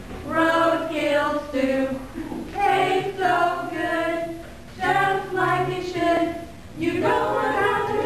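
Several voices singing a song together without accompaniment, in phrases of held notes with short breaks between them.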